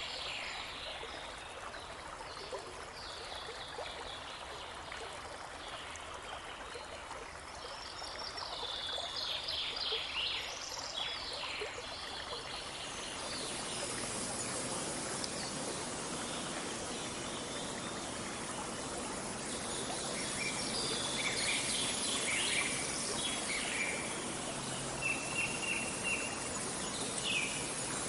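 Babbling brook running steadily with songbirds calling and trilling over it. The water grows louder about halfway through.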